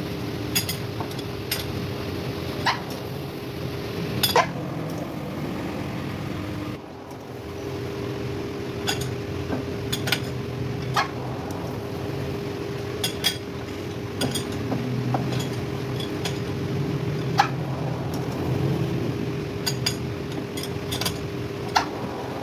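Lathe running with a steady hum while a boring tool cuts out the bore of a 2-inch washer, with scattered sharp metallic clicks and short squeaks every second or two. The running sound drops briefly about seven seconds in.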